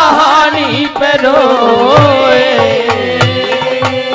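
Live Haryanvi ragni music: a wavering melodic line over repeated hand-drum beats.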